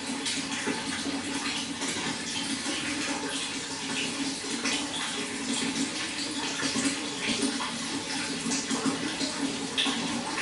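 Water running and splashing steadily: a constant flow with many small splashes.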